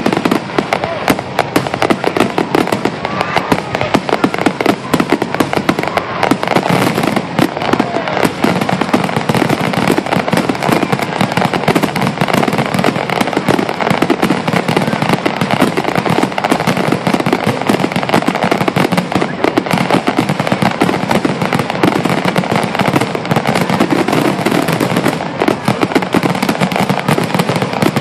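Fireworks finale barrage: a dense, unbroken volley of shells bursting and crackling in rapid succession.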